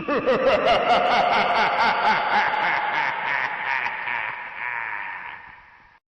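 A heavily echoed voice sound: short, repeated syllables that rise and fall in pitch pile up on each other and fade away over about six seconds before cutting off.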